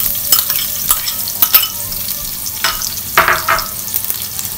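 Chopped garlic frying in hot oil and melted butter in a stainless steel pan: a steady sizzling hiss with frequent sharp crackling pops.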